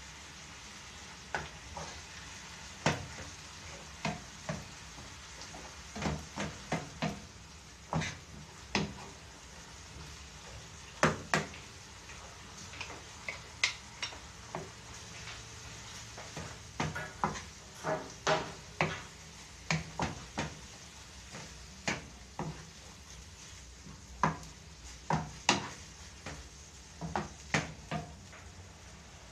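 Ground meat and sliced hot dog frying with a steady sizzle in a nonstick pan, while a wooden spoon stirs and knocks against the pan at irregular intervals, dozens of times.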